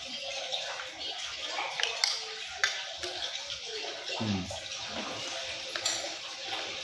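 Light clicks of screws and a screwdriver being worked into a box fan's motor mount, over a steady rushing hiss.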